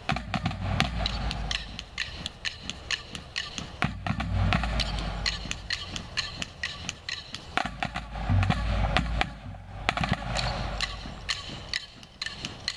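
Marching band drumline playing a marching cadence: crisp snare and stick clicks about four or five times a second over low bass drum hits.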